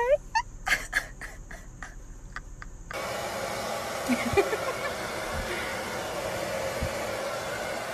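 Hand-held hair dryer blowing steadily, switching in about three seconds in after a few faint short sounds, drying a silkie chicken's feathers.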